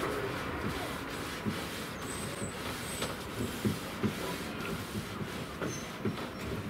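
Paintbrush working wood impregnator into a wooden window frame: irregular soft taps and rubbing strokes over a steady background hiss.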